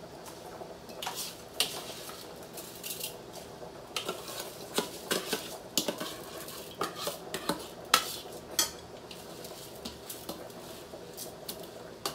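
Metal ladle clinking and scraping against a metal cooking pot and a bowl as rice is ladled from the bowl into a pot of boiling water and stirred. The clinks come irregularly, the sharpest about eight seconds in.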